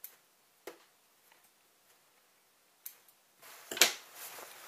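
Handling noise from hand-sewing work: a few light, sharp clicks, then rustling with one loud sharp knock near the end.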